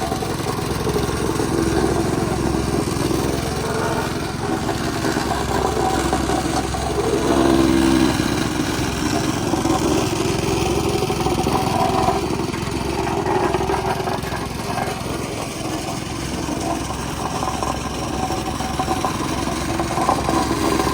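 Small engine running steadily, the sound of the pothole repair machine at work, getting somewhat louder about seven to eight seconds in.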